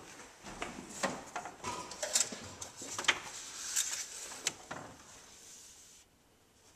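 Engine oil dipstick being handled: pulled out of its tube and wiped with a towel, a run of irregular scrapes, clicks and rustles that dies away about five seconds in.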